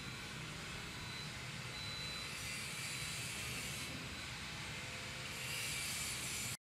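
Steady rushing outdoor background noise with a faint thin high whine, cutting off suddenly near the end.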